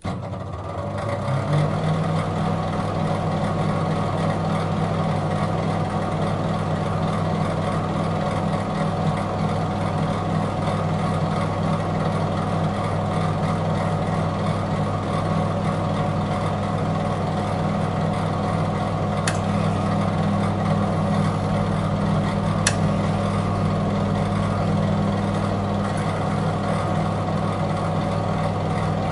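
Microwave oven running with a steady low hum, with two faint clicks about two-thirds of the way through.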